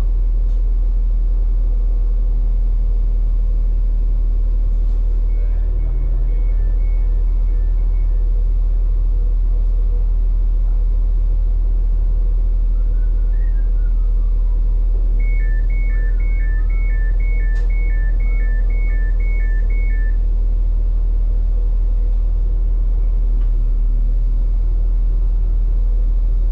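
Steady low hum of a stationary train heard from inside the carriage, its engine and on-board equipment running. Twice a two-tone electronic beep sounds over it, alternating high and low about twice a second: briefly about five seconds in, and again for about five seconds in the middle.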